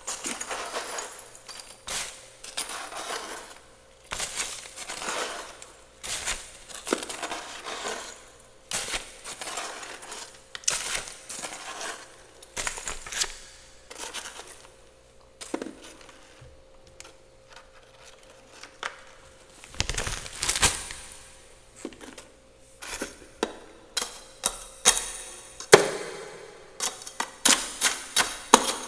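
Frost and ice being scraped from the inside of a freezer in repeated strokes about a second apart, with hard chunks of ice clicking and clinking, the sharp clicks coming thick and fast near the end.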